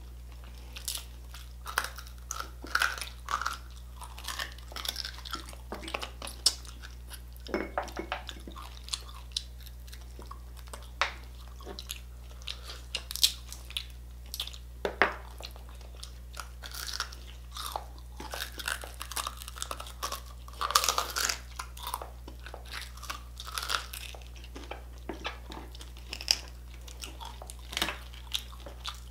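Two people chewing and crunching crispy pata, deep-fried pork knuckle with crackling skin: irregular crisp crunches and bites, with a steady low hum underneath.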